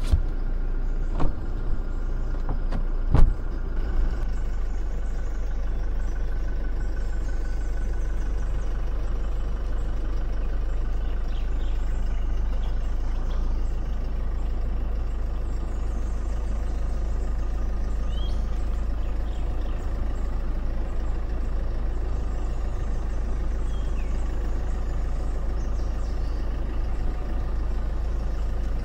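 Car driving, a steady low rumble of engine and road noise heard from inside the cabin. Three sharp knocks come in the first few seconds.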